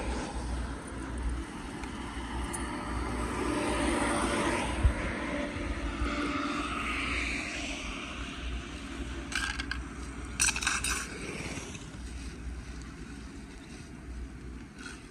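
Road traffic passing, swelling and fading over several seconds. About ten seconds in come a few quick scrapes and rustles as litter is pulled off a storm drain grate into a plastic rubbish bag.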